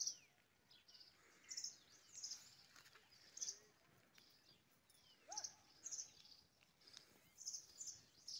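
Faint, scattered bird chirps: short high calls coming every half second to a second, with one lower whistle that rises and falls about five seconds in, over otherwise near silence.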